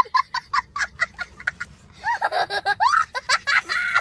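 A young child laughing hard: a quick run of short, high giggles, then longer high laughs that rise and fall in pitch.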